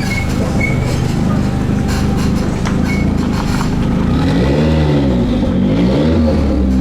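Car engine idling, then revved up and back down twice in the second half, with another rev starting at the end.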